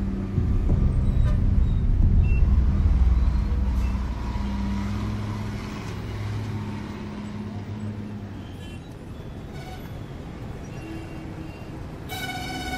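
A low rumble, loudest a few seconds in and then fading away. Near the end a pitched, horn-like tone starts.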